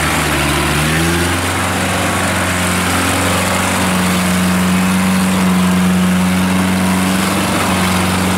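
Engine of a small tracked rice-field carrier revving up in the first second or so, then running steadily under load as the crawler drives through the mud.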